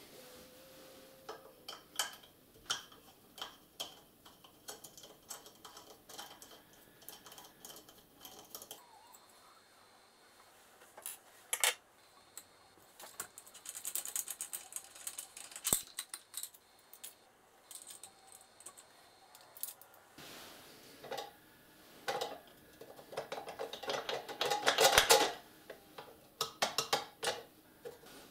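The handwheel and mechanism of a Kenmore Ultra Stitch 12 sewing machine being worked by hand: irregular clicks and rattles of plastic and metal parts, with a denser clatter about halfway and the loudest burst of it near the end.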